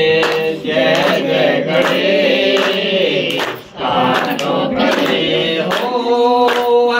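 Several voices singing a devotional aarti to Ganesh together, holding long notes, with sharp taps sounding every so often and a short break in the singing about halfway through.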